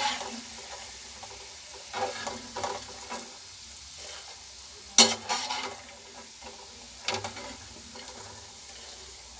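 Hot oil sizzling as besan-coated peanuts deep-fry in a kadhai, with a perforated metal spoon scraping and clinking against the pan and the steel plate several times as the last batch is lifted out; the sharpest clink comes about five seconds in.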